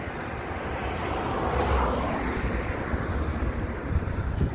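A vehicle passing on the road, its noise swelling to a peak about two seconds in and then fading, over a low rumble of wind on the microphone.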